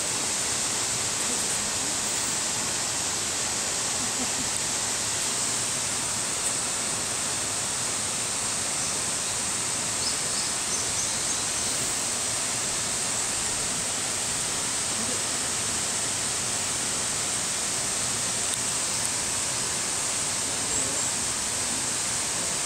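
Steady outdoor background hiss, even and unbroken, with no distinct events.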